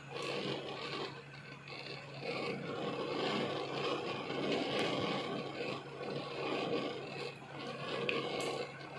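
Minced meat (Bihari keema) frying in its own released ghee in a pan on low heat, a steady sizzle over a low hum, with a few light clicks, one near the end as a ginger slice is set on top.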